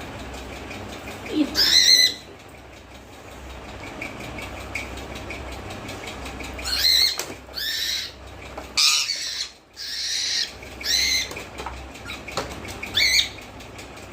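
Pet parrot giving a series of loud, high-pitched calls, one about a second and a half in and a quick run of them from about seven to thirteen seconds.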